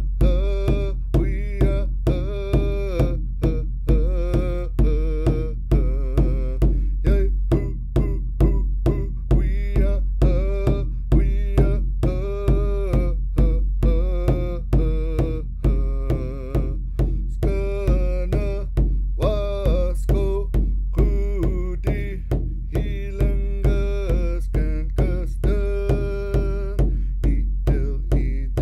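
Background music with a steady beat, about two hits a second, over a deep bass.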